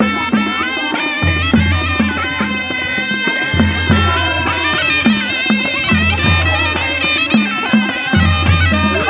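Traditional Nepali folk band music: a reedy wind instrument carries the melody over a steady drum beat and a recurring low held note.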